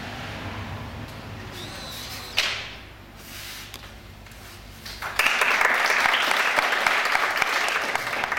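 A small audience clapping, starting suddenly about five seconds in; this is the loudest sound. Earlier, a single sharp sound about two and a half seconds in.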